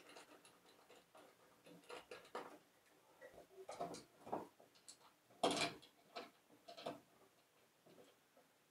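Irregular small clicks and taps of a white plastic lampholder being handled and pressed against a ceiling electrical box as it is fitted, the sharpest a little past halfway.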